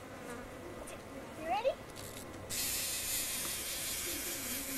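A steady high-pitched hiss or buzz that starts abruptly about halfway through, holds level for a couple of seconds, and stops suddenly with a click at the end.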